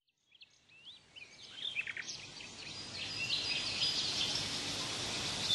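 Outdoor ambience: birds chirping in short rising and falling calls over a steady hiss, fading in over the first few seconds.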